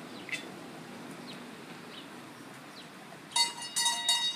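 Doorbell chime, rung by a dog pressing the bell at the front door, sounding in two short ringing pulses near the end.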